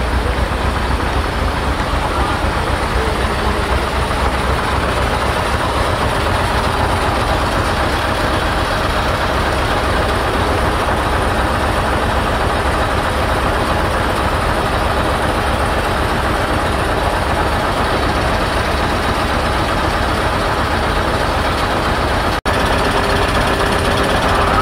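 Heavy vehicle running steadily with traffic noise, a continuous low rumble with no change in pitch. It cuts out for a moment near the end and comes back with a steady hum added.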